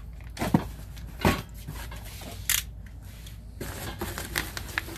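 Handling of packaging: rustling of cardboard and bubble wrap with several sharp clicks and knocks, the loudest about half a second in and again about a second later.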